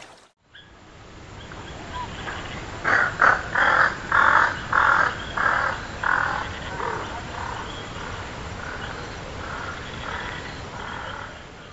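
A bird giving a long series of harsh, caw-like calls, about two a second, loudest at first and fading toward the end.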